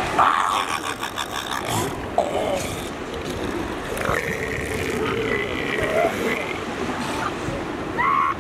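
Northern elephant seal cows and pups calling over steady surf, a series of separate belch-like calls. A rapid pulsing call comes about half a second in, and a long, high drawn-out call runs from about four to six seconds in.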